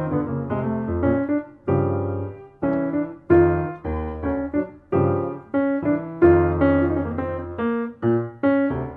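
Solo piano playing an instrumental Brazilian jazz piece: full chords over low bass notes, struck in short rhythmic phrases, each chord ringing and fading with brief gaps between phrases.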